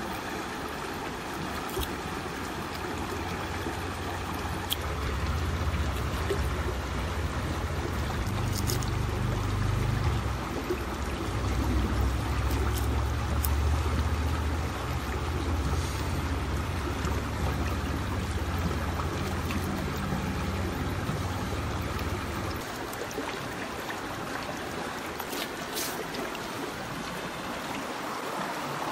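River water flowing steadily. A low rumble sits under it from about three seconds in until about twenty-two seconds in.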